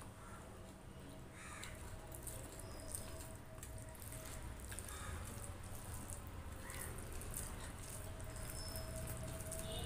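Close-miked eating sounds: fingers squishing and mixing cooked rice and curry on a steel plate, with wet mouth clicks and chewing, as many small irregular clicks and squelches.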